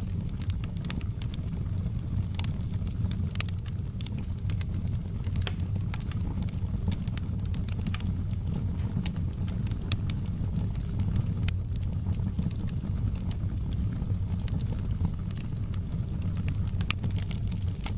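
Wood fire burning, with a steady low rumble and frequent sharp crackles and pops at irregular intervals.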